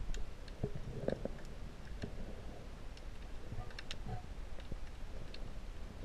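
Muffled underwater ambience heard through a camera housing: a steady low rumble with scattered faint clicks and a few louder knocks about a second in.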